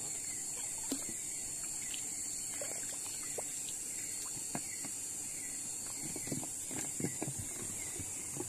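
Steady high-pitched drone of night insects, with a faint chirp repeating about twice a second. Scattered small splashes and drips of water come from a scoop net being worked in a shallow stream, most of them in the second half.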